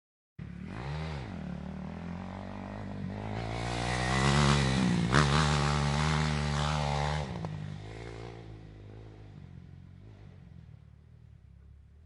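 Dirt bike engine cutting in abruptly with a quick blip of the throttle, then running steadily and growing louder to a peak about halfway through before fading away. A single sharp click sounds near the loudest point.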